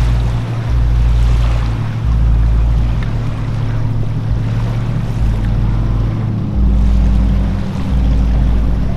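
Wind buffeting the microphone in gusts, a heavy rumble that cuts in and out every second or so, over a steady low hum.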